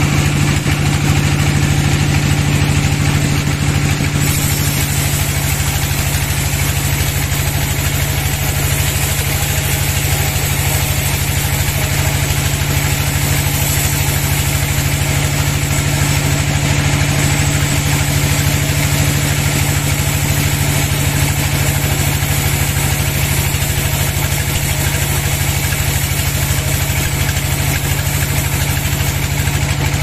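Sawmill band saw running steadily, its blade cutting lengthwise through a long log, over a steady low hum from the saw's drive.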